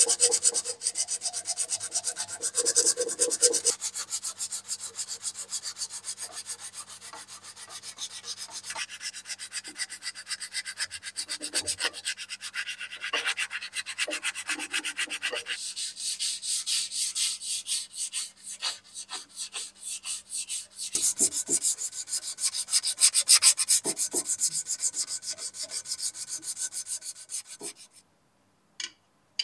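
Sandpaper wrapped around a brass tube, rubbed by hand over the curved steel of an axe head in quick back-and-forth strokes. The sanding stops near the end.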